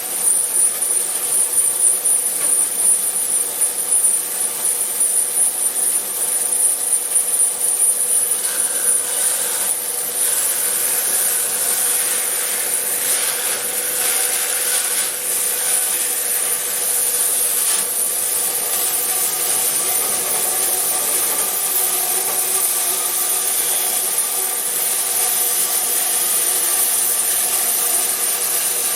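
36-inch resaw band saw running and cutting through wood: a continuous high hiss over a steady hum, uneven for the first several seconds and then even.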